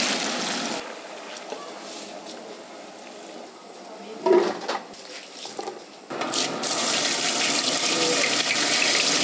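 Hot oil sizzling in a large cooking pot, a steady hiss that drops off about a second in and comes back louder about six seconds in.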